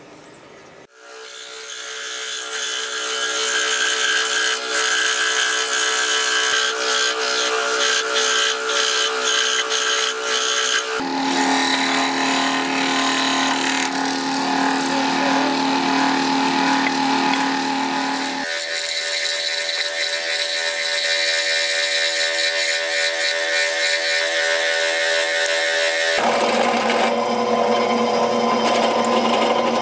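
Workshop power tools running one after another. A motor spins up about a second in, and the sound changes abruptly three times. A scroll saw cutting wood is heard around the middle, and a bench drill press boring into a wooden handle block near the end.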